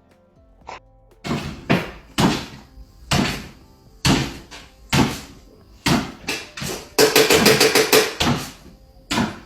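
Music made of loud, spaced percussive hits, with a fast run of hits about seven seconds in.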